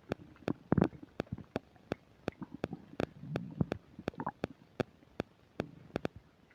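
Stomach growling and gurgling from an upset stomach digesting a meal, picked up close on the belly: low rumbles, the loudest about a second in and another around the middle, with a short gurgle after it. A steady train of sharp clicks, about two or three a second, runs through it, typical of the microphone's static.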